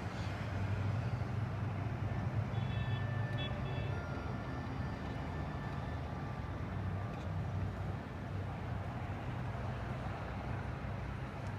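Steady low rumble of city traffic and idling vehicles at an intersection, with a few faint thin high tones a few seconds in.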